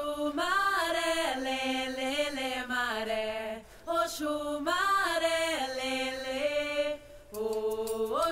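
A single voice chanting a short, repeating melody of long held notes that slide from one pitch to the next, in phrases of about three and a half seconds with a brief pause between them.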